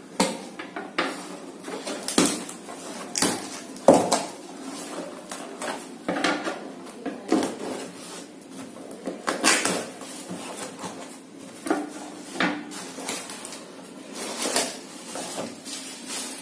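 A cardboard parcel being cut open with a utility knife and unpacked: irregular scrapes and clicks as the blade slits the packing tape, with knocks and rustles of the cardboard flaps being worked open.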